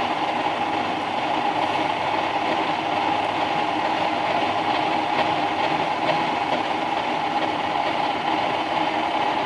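Milling machine running with a steady, even mechanical drone.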